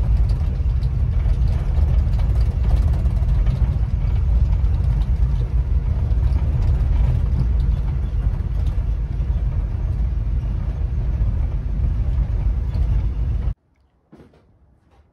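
Inside the cab of a 1954 Chevy driving on a dirt driveway: a steady, heavy, low engine and road rumble. It cuts off suddenly near the end, leaving only a few faint clicks.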